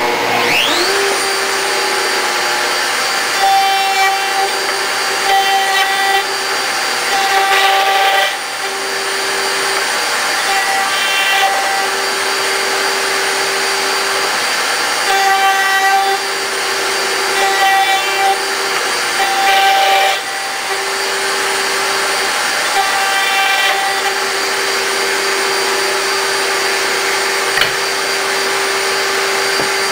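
A router mounted in a router table spins up about a second in and then runs with a steady high whine. The sound changes in repeated passes of a few seconds each as the bit cuts mortises into oak rails.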